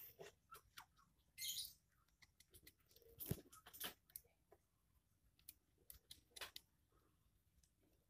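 Faint scattered clicks, scrapes and rustles of hands binding rubber strips onto a wooden slingshot fork, with one sharper snap about three seconds in.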